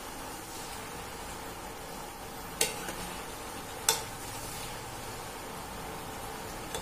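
Macaroni and sausage in a wet tomato sauce sizzling in a nonstick wok while a utensil stirs it, with two sharp knocks of the utensil against the pan near the middle.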